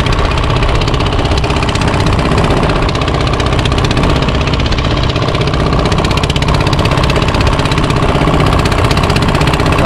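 A fishing boat's diesel engine running steadily, with a fast, even beat.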